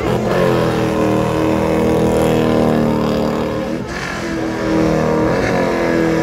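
A car engine held at high revs as the car spins doughnuts with its rear tyres spinning; the revs dip briefly about four seconds in and again a second and a half later, then climb back.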